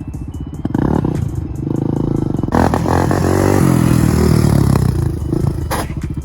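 Honda TRX400EX quad's single-cylinder four-stroke engine running at low revs, then revving hard about two and a half seconds in, its pitch rising and falling as the quad is pulled up into a wheelie. A rush of noise runs alongside the revving, and there is a short sharp burst near the end.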